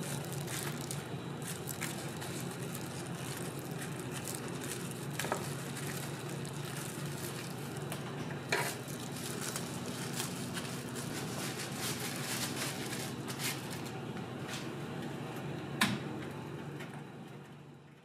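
Food-stall kitchen sounds: a steady hum under a bed of handling noise, with a few sharp knocks or clatters, fading out near the end.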